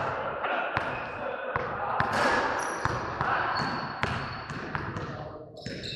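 Irregular sharp knocks or thuds, roughly one or two a second, over the sound of voices.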